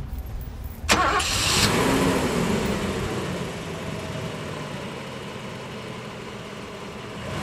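Car engine starting about a second in, revving briefly and falling back to a steady idle.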